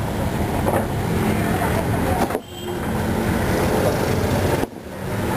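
Road traffic noise from a busy street, with faint voices in the background. The sound dips briefly twice, about two and a half seconds in and again just before five seconds.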